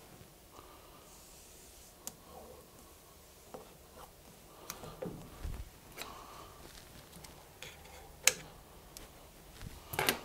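Electrical tape being laid and pressed down along the edges of a resin printer's LCD screen: scattered light taps, rubs and small clicks, with one sharp click about eight seconds in and a short burst of rustling near the end.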